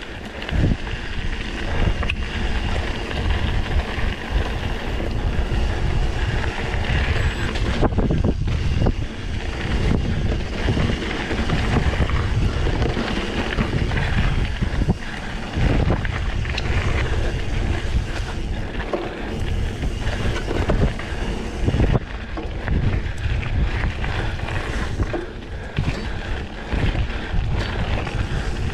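Wind buffeting the microphone and the rumble of mountain bike tyres ridden fast on a forest trail, with frequent knocks and rattles over bumps.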